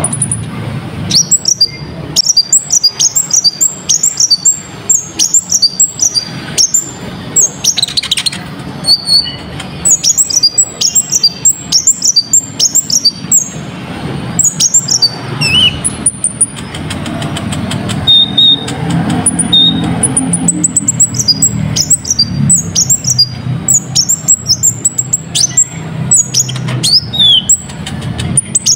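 A konin (kolibri ninja) songbird singing vigorously: fast runs of sharp, high-pitched chirps and quick sweeping notes with brief pauses between runs, over a steady low hum.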